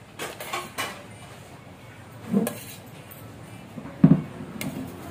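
Metal serving tongs clicking and tapping against a glass dish while fish steak pieces are handled: a few sharp clicks in the first second, then two duller knocks, the louder one about four seconds in.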